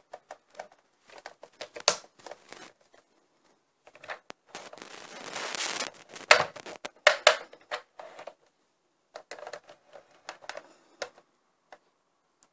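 Plastic clicks and knocks from the ladder and figure of a Fisher-Price toy fire engine being handled. About halfway through, a rising hiss lasts over a second and ends in a few sharp clicks.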